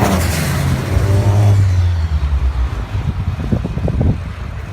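Car engine running for about the first two seconds, then fading into a run of irregular low pops and thumps.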